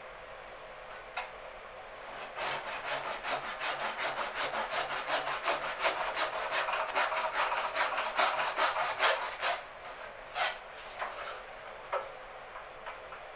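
Hand saw cutting a dovetail in maple: a single stroke, then a steady run of quick back-and-forth strokes, about three a second, for about seven seconds, ending in a few slower separate strokes.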